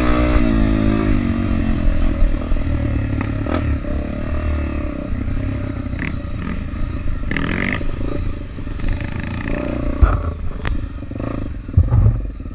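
Trail motorcycle engine running, its revs falling at the start and then settling into a low, steady rumble, with a few sharp knocks near the end.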